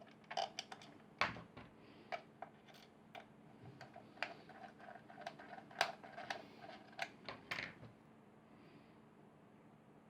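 Small plastic parts being handled and fitted together: a string of light clicks and taps for most of the time, stopping near the end.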